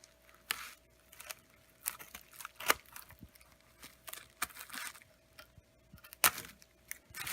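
A cardboard box being opened by hand: scattered sharp clicks and snaps of cardboard and packing, with rustling near the end.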